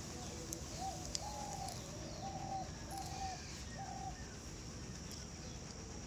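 A dove cooing in the background, a run of about five short, even coo notes between one and four seconds in.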